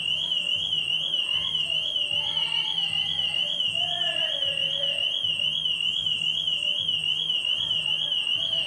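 Car alarm sounding a loud high warbling tone that swings rapidly up and down about four times a second, cutting off abruptly at the end.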